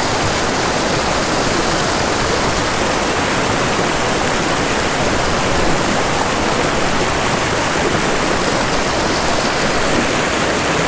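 A shallow, fast mountain stream rushing and splashing over boulders close by, a loud steady whitewater rush that does not change.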